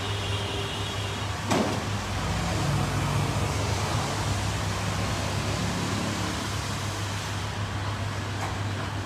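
Road traffic passing on a street, over a steady low hum, with a single sharp click about one and a half seconds in.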